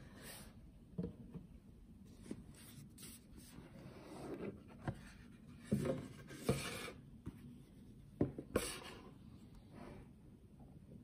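Hands handling Rolex watch boxes: cardboard and the green presentation box sliding and rubbing against each other, with a few sharp light taps and knocks as the box is handled and set down on a table.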